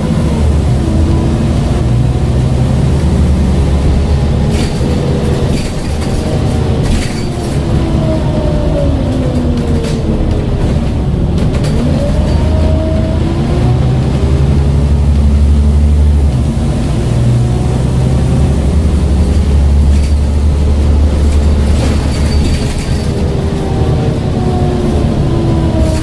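Scania N94UD OmniCity double-decker bus heard from inside the saloon while driving: a loud low engine drone with the ZF automatic gearbox whining above it, the whine sliding up and down in pitch as the bus speeds up, changes gear and slows. Short rattles from the body now and then.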